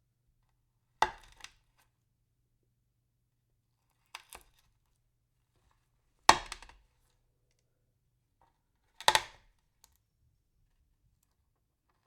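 Pills being crushed in four separate crunches, each a sharp crack followed by a short crackle of grinding fragments, with silence between them; the third crunch is the loudest.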